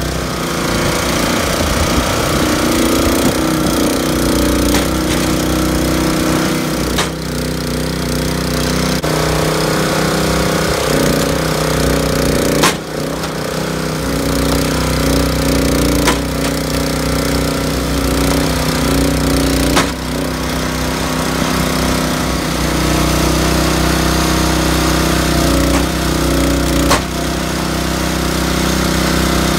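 Small gasoline engine driving a hydraulic log splitter runs steadily. About half a dozen sharp cracks are spread through it as ash rounds burst apart against the wedge.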